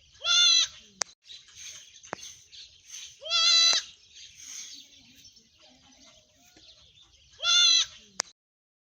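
Bleating livestock: three loud, wavering bleats about three seconds apart, each followed by a sharp click, over a faint background hiss. The sound cuts off suddenly near the end.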